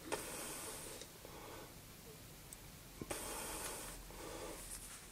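Faint, close breathing in two breathy swells about three seconds apart, with small clicks as a steel taper piece is handled and set down on a milling vise.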